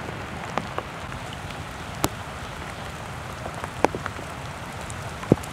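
Steady outdoor hiss with a few scattered sharp ticks through it.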